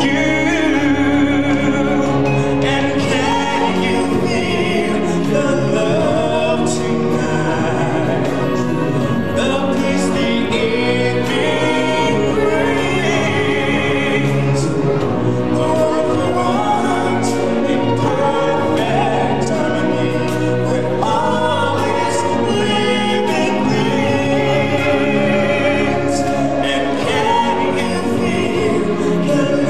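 Stage-show music with a choir singing.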